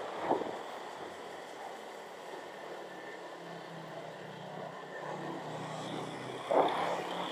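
Motorcycle engine running steadily at low road speed, heard from the rider's seat with wind noise on the microphone. A brief louder noise comes about six and a half seconds in.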